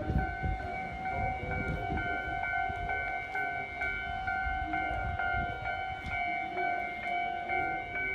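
Electronic railway level-crossing warning bell ringing, a steady high tone pulsing evenly, warning of a train, over a low rumble.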